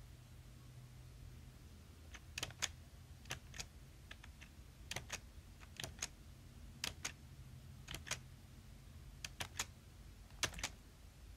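Crisp close-up clicks, mostly in quick pairs about a fifth of a second apart, repeating roughly once a second.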